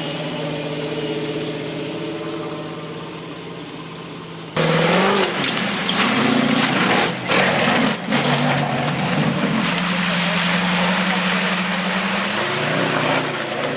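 A 4x4's engine idling steadily. About four and a half seconds in, there is an abrupt jump to a much louder engine working under load, its pitch rising and then wandering, with a loud rushing noise over it.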